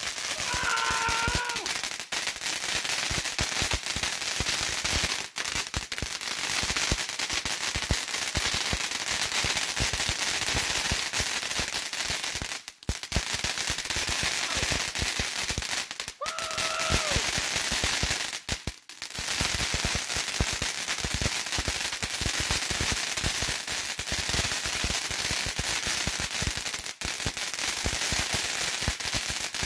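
Santan Fireworks FW190 fountain firework burning: a constant rush of spark hiss packed with rapid crackling pops. It drops out for a moment twice, about halfway through.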